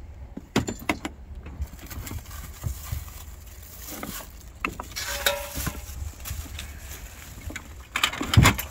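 Handling of produce at an open car trunk: plastic grocery bags rustling, with scattered knocks and clinks as vegetables and a metal hanging spring scale are moved. A low steady rumble runs underneath.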